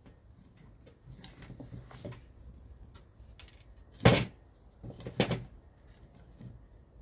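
Birch branches being shifted and knocked down on a glass-topped table: light rustling and small clicks, then a loud knock about four seconds in and another clatter about a second later.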